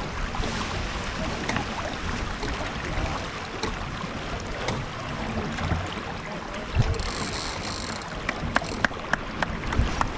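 Wind buffeting the microphone over the splash and slosh of open-water chop. Several short sharp knocks come close together near the end.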